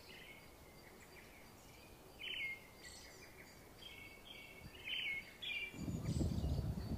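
Birds chirping outdoors: a series of short, high chirps, one every half second or so. A low rumble comes in near the end.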